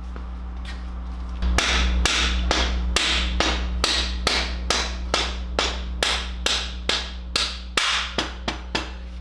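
A hammer taps the long top through-bolt back through the engine mount of a 1979 Honda CBX, in a steady run of about twenty sharp taps a little over two a second. Each tap rings briefly, and the run starts about a second and a half in.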